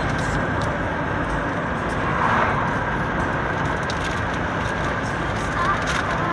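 Steady engine and road noise from a moving vehicle, heard from inside the cabin.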